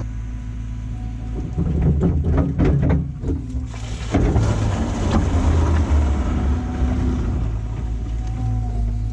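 Diesel engine of a heavy earthmoving machine running steadily, with a quick cluster of knocks about two to three and a half seconds in; the engine works louder from about four seconds on.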